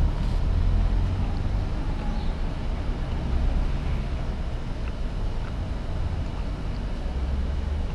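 Low, uneven rumbling background noise with no speech, strongest in the deep bass and pulsing in strength.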